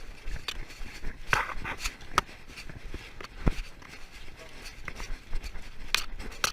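Boxer puppy left alone with separation anxiety, making a run of irregular knocks and scuffles.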